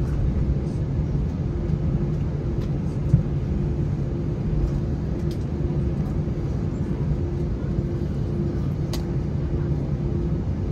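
Steady low hum in the cabin of a parked Airbus A321-231, with a few light clicks over it.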